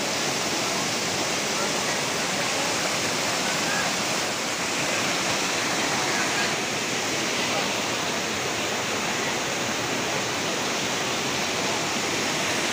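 Steady rush of a waterfall pouring over a rock face.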